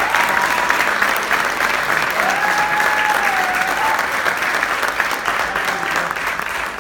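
Audience applauding, with a few whistles over the clapping in the first few seconds; the applause starts to die down near the end.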